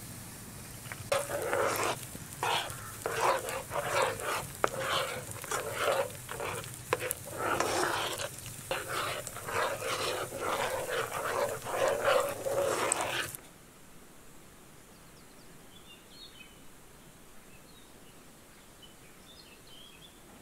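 A dog barking repeatedly for about twelve seconds, then stopping abruptly; after that only a quiet background with a few faint chirps.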